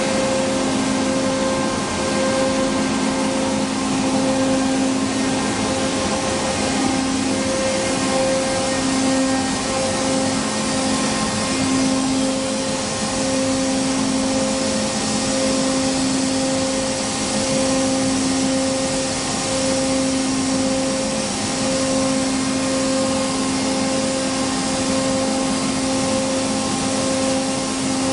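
HOMAG CNC router running: a steady, loud machine noise with a hiss and a hum that wavers slightly.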